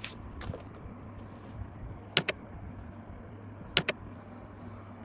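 Two sharp double clicks about a second and a half apart, with fainter clicks near the start, over a low steady hum.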